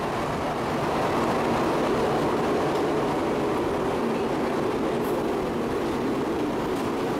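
Tokaido Shinkansen train moving along the station platform: a steady, loud rolling rumble and rush of air from the passing carriages.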